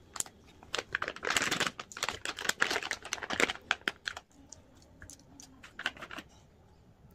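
Crinkling and rustling of a plastic henna-powder packet being handled over a steel bowl, with many sharp crackles in the first half, followed by a few scattered light clicks and taps.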